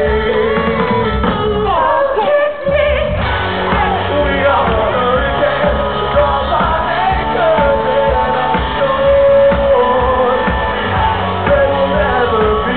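Live rock band playing with a lead singer, recorded from within the audience. The music drops out briefly about two seconds in, then carries on.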